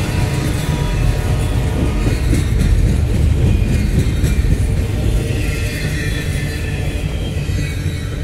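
Double-stack intermodal container cars of a freight train rolling past: a steady low rumble of steel wheels on rail with scattered clicks, and a faint high whine coming up for a second or so near the end.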